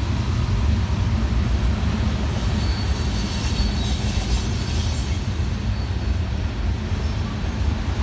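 Manifest freight train of tank cars rolling past at a distance: a steady low rumble, with a faint high squeal about midway.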